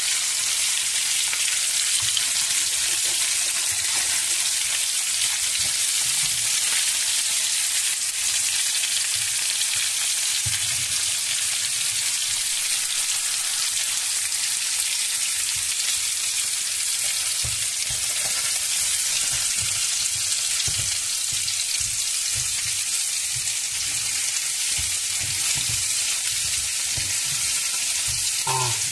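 Pieces of moray eel and small fish frying in hot oil in a pan, a steady sizzling hiss, with occasional low knocks.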